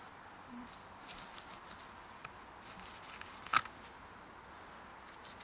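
A pine root being drawn through a slit cut in a piece of punky dead wood, with soft scraping and crackling and one sharp crack about three and a half seconds in. The pull strips and softens the root into pliable cordage.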